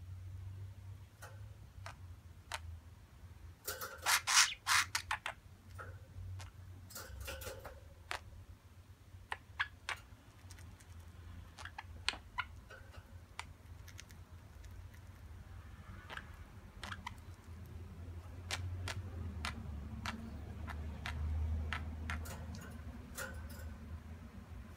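Budgerigars' beaks and feet clicking and scratching on a wire cage top: scattered sharp ticks, with a quick run of louder clicks about four seconds in. A low steady hum lies underneath.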